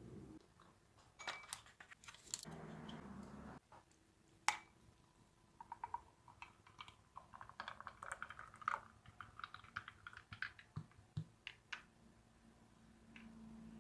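A run of light, irregular clicks and taps of small objects being handled, with a short rustle about two seconds in and one sharper knock about four and a half seconds in.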